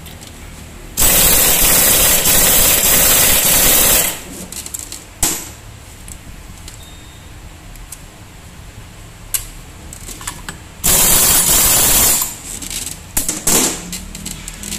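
Impact wrench running in two bursts, a long one of about three seconds and a short one near the end, fastening the nut on the front drive pulley of a scooter's open belt-drive (CVT) transmission. A few short metal clinks fall between the bursts.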